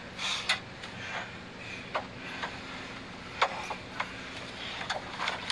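Close handling noise: a seatbelt being pulled across in a car's back seat, with rustling and a few sharp clicks and knocks, over a faint steady hum.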